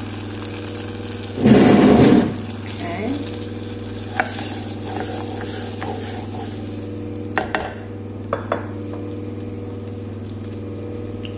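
Garlic cloves and rosemary sizzling in hot fat in a saucepan while a wooden spoon stirs, knocking against the pan a few times. About a second and a half in there is a brief, much louder burst lasting under a second.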